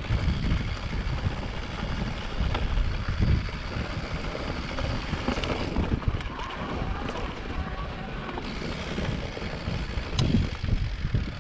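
Wind buffeting the microphone in uneven low rumbling gusts, with a few faint clicks.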